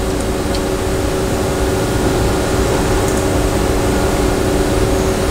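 Steady mechanical hum of running machine-shop equipment, with several steady tones held through it.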